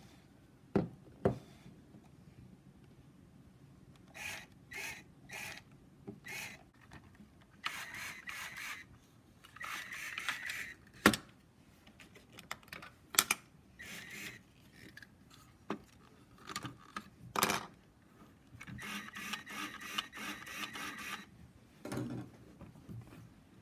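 A plastic LEGO machine being handled on a wooden table: several sharp knocks, and repeated short bursts of rubbing and rattling, the longest near the end.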